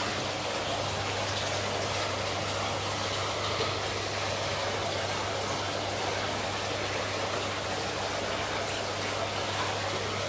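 Aquarium pump and aeration running: a steady rush of moving, bubbling water with a constant low electrical hum.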